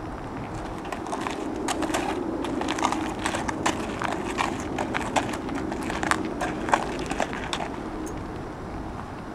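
Horse's hooves knocking on the floor of a horse trailer during unloading, a run of irregular steps that stops about two seconds before the end.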